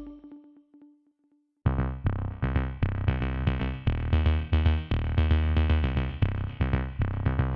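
Background music: one track ends with a fading held tone, then after about a second of silence another track with a steady beat and synthesizer starts.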